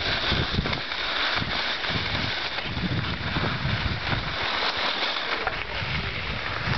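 Wind buffeting the camera microphone in uneven low gusts over a steady hiss, while moving downhill over snow.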